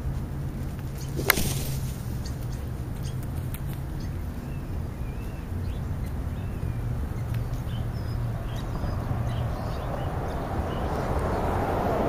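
Black vultures pecking at a food pile right by the microphone, with one sharp knock about a second in. Faint chirps of small birds, over a steady low hum of road traffic that swells as a vehicle passes near the end.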